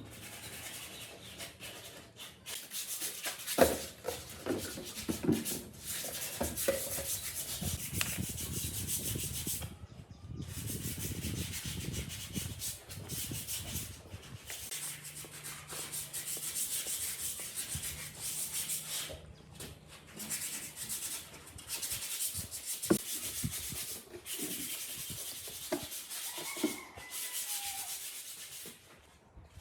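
Sandpaper rubbing on wood by hand, a scratchy hiss in spells broken by short pauses.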